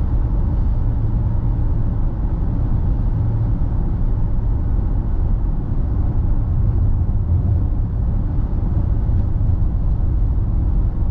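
Steady low rumble of a car driving along a road: tyre and engine noise that holds an even level with no breaks.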